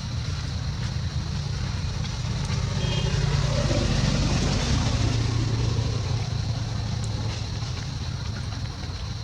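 A motor vehicle passing by: engine and road noise swell to a peak about four seconds in, then fade away.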